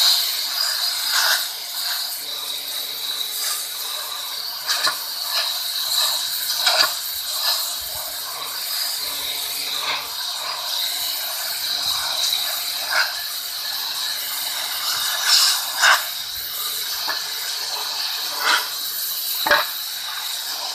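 Bosch 140-bar electric pressure washer spraying a high-pressure jet onto a slate slab, set to its maximum pressure. A steady hiss of spray is heard with the pump motor's hum underneath, broken by frequent short, sharp spatters.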